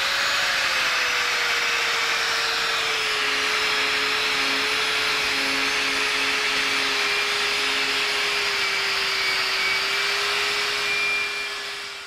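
Angle grinder with a heavy wire brush wheel running against a rusty steel barbecue plate, stripping the rust: a steady motor whine over a harsh scratching hiss. It winds down near the end.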